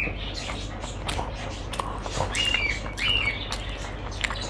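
A dog whining in short, high-pitched whines: one at the start, then two more a little after two and three seconds in. Small clicks and rustles of fingers mixing rice on a plate run underneath.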